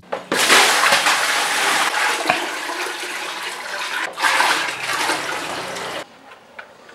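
Water poured from a plastic bucket into a plastic basin, splashing as it fills. The pour dips briefly about four seconds in and stops near the end.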